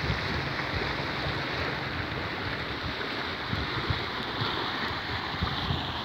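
Muddy floodwater rushing steadily through a flooded scrub channel, with wind buffeting the microphone in uneven low rumbles.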